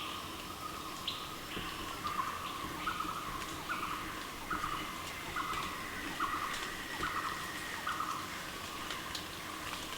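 Tropical forest bird repeating a short call about once a second, eight or so times, over a steady high hiss of forest background with a few faint high chirps.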